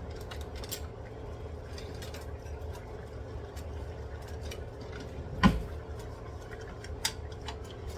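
Kitchen handling noise: light clicks and clinks of cookware and utensils, with one loud knock about five and a half seconds in and a smaller one near the end, over a steady low hum.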